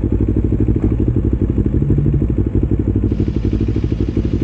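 Kawasaki Ninja 250R's parallel-twin engine running steadily through new aftermarket headers and exhaust, a fast, even pulsing with no big change in revs.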